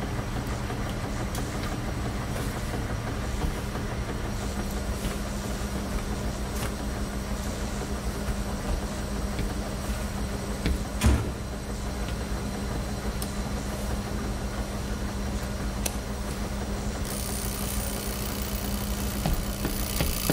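Steady mechanical rumble and hum of a bank of front-loading washing machines running, with one sharp knock about halfway through. A high ringing tone joins in near the end.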